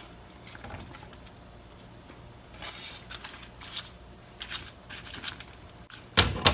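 Light clicks and rustles of kitchen utensils turning pieces of simmering koya (freeze-dried) tofu in a pot, over a soft steady hum, with a louder cluster of knocks about six seconds in.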